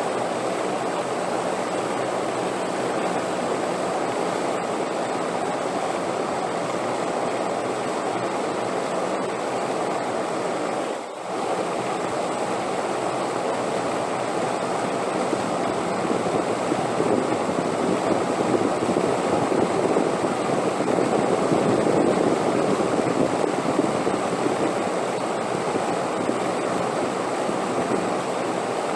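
Steady wind sound, a low rushing noise without pitch that swells somewhat in the second half, with one brief dip about eleven seconds in.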